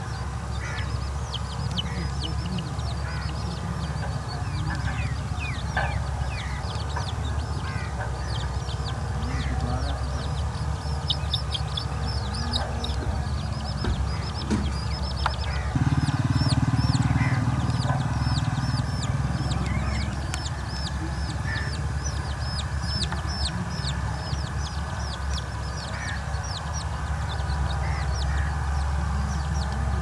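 Chicks peeping in a quick series of short, high, falling chirps, several a second at times, with a hen clucking. A steady low rumble lies underneath and grows louder about halfway through.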